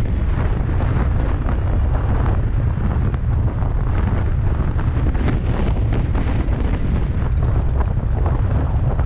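Motorcycle riding in traffic, heard from the rider's seat: the V-twin engine of a 2017 Harley-Davidson Street Glide Special running under way, mixed with steady wind buffeting the microphone. The noise is loud and even throughout, heaviest in a low rumble.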